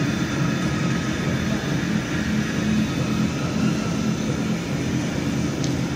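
Snack pellet production line running steadily: the motors and rollers of the dough-sheeting and cutting machines give a constant machine hum, with one brief light click near the end.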